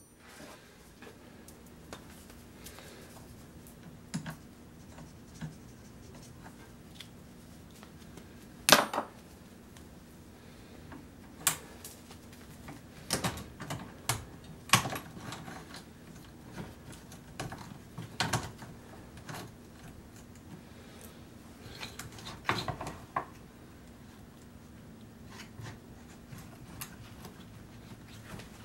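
Steel saw chain clinking and clicking as it is handled and fed into the vise of a bench-mounted electric chain sharpener, with scattered sharp clicks every second or so, the loudest about nine seconds in, over a faint steady hum.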